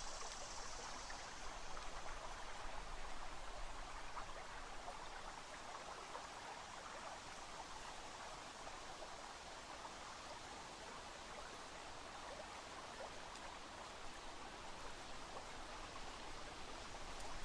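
Rio Grande river water flowing past a sandy bank: a low, steady rush of moving water.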